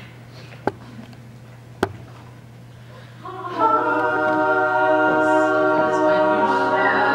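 An a cappella group of mixed voices comes in about three seconds in on a held chord of several sustained notes. Before it, the room is quiet but for two sharp clicks and a low steady hum.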